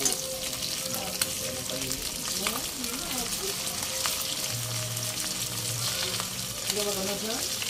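Dried salted fish (tuyo) sizzling steadily as it fries in hot oil in a wok, with a few sharp clicks of metal tongs against the fish and pan.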